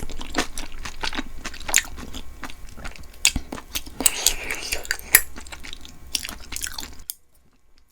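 Close-miked eating sounds: chewing with many sharp, irregular wet mouth clicks. They stop abruptly near the end.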